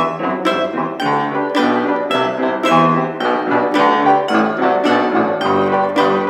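Piano played solo: chords and bass notes struck in a steady, marked rhythm of roughly two strokes a second.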